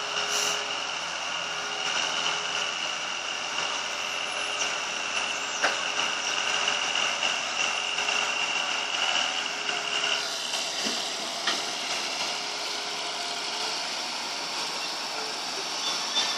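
Excavator working hard while dredging: its engine runs steadily under load with a high hydraulic whine that stops about ten seconds in, and a few sharp knocks. The rough sound fits what the owner puts down to the machine being underpowered.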